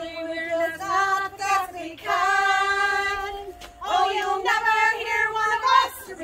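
A group of women singing together without accompaniment, holding long notes, one held for over a second midway.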